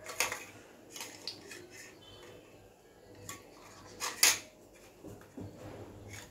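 Metal forks and spoons clinking against a steel mixing bowl as a bread slice is turned in egg batter: a string of sharp clinks, the loudest a little over four seconds in.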